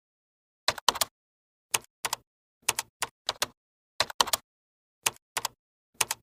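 Typewriter keys clacking: sharp strikes in short irregular runs of two to four, about once a second.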